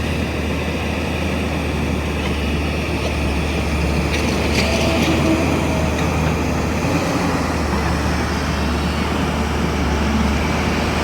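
Diesel engine of a JCB 205 excavator running steadily under load, a constant low drone with a dense mechanical noise over it.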